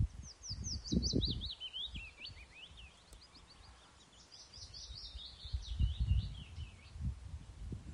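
A small songbird singing in two runs of quick chirps. The first slides downward in pitch over the first three seconds; the second runs from about four seconds to near the end. Underneath is a low, gusty rumble, loudest at the start and again around six seconds.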